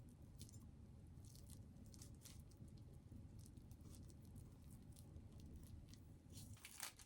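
Faint, scattered small clicks and taps of kitchen food preparation over a low steady room hum.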